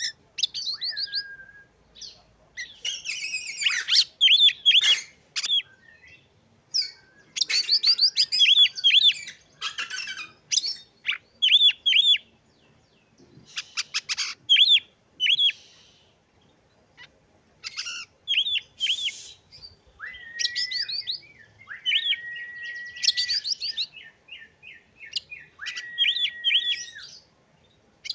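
Oriental magpie-robin (kacer) singing in phrases: quick runs of descending chirps, a few harsh scratchy notes, and, in the second half, several long level whistles held for a second or more.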